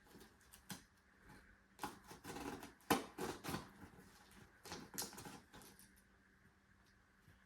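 Packaging being opened and handled by hand: irregular crinkles, scrapes and clicks, the sharpest about three seconds in.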